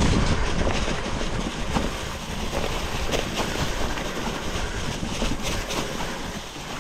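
Titanium hardtail mountain bike rolling along a leaf-covered forest trail: tyres crunching and rustling through dry fallen leaves, with steady rattling and many short clicks from the unsuspended bike over the bumps.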